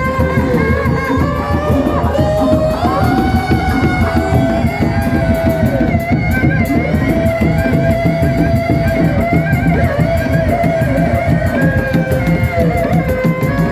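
Kuda lumping accompaniment music playing. A held, wavering melody line runs over a busy, fast drum rhythm.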